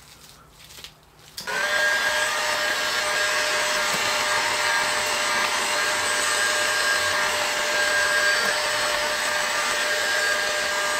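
Electric heat gun switched on about a second and a half in, then running steadily: a fan rush with a steady whine over it.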